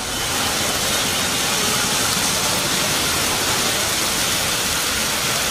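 Heavy rain falling on a city road, a steady hiss, with traffic driving through the wet street.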